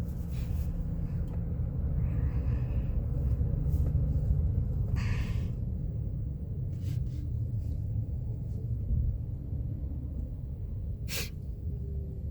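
Low, steady road and engine rumble inside a moving truck's cabin, with a short rustle about five seconds in and a sharp click near the end.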